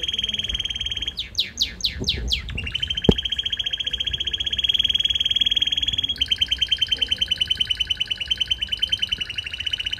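Pet red canary singing: a fast, even trill, then a run of about six quick falling swoops, then another long trill that turns near the middle into a slower, choppier roll of about ten notes a second. A single sharp tap sounds about three seconds in.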